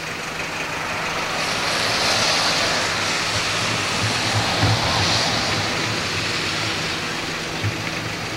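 A vehicle passing on the road: tyre hiss swells over the first couple of seconds and fades away, over a low steady hum.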